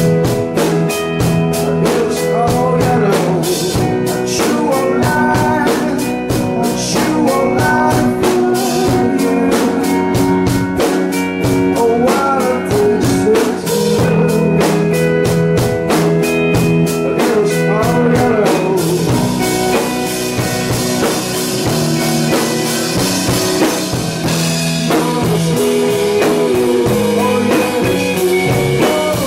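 A live rock band playing: electric guitar and bass over a drum kit with a steady beat. Little more than halfway through, the cymbals start to wash continuously over the playing.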